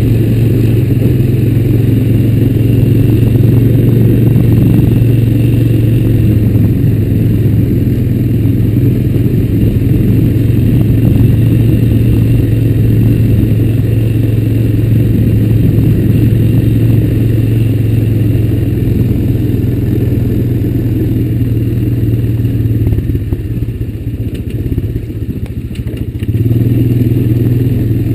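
2004 Honda Recon 250 ATV's single-cylinder four-stroke engine running steadily under way across rough ground. It eases off for a few seconds near the end, then picks up again.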